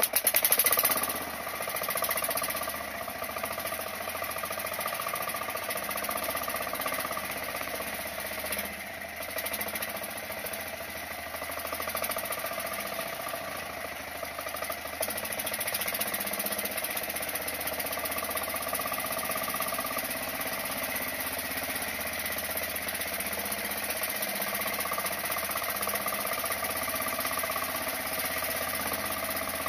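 Small fishing boat's engine running steadily while the boat is underway. It starts abruptly and is loudest in the first second.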